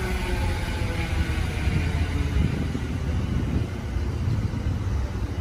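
Electric commuter train running past on the adjacent track, a steady low rumble of wheels on rail. A faint motor whine falls in pitch near the start as the train slows.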